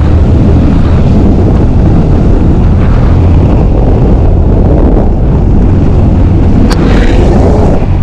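Rushing wind on the microphone of a Yamaha sport motorcycle at speed, over the deep, steady rumble of the engine and road, as the bike picks up speed. A single sharp click near the end.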